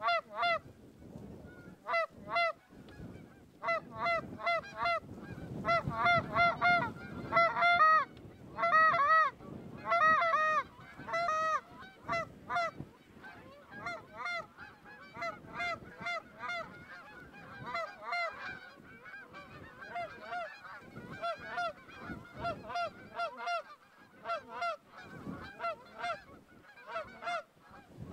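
Canada geese honking from a flock overhead: many short, repeated honks, loudest and densest in the first half, giving way to a fainter, overlapping chorus of calls.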